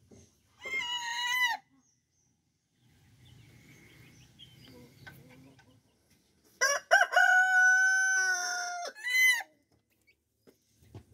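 Rooster crowing twice: a short crow about a second in, then a long crow that opens with a few choppy notes, holds one long note, and ends with a brief rising note.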